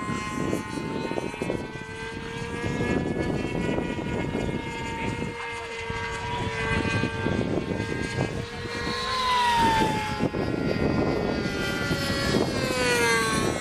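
Radio-controlled electric model airplane in flight, its motor and propeller giving a steady whine. The pitch drops as it passes by, about ten seconds in and again near the end.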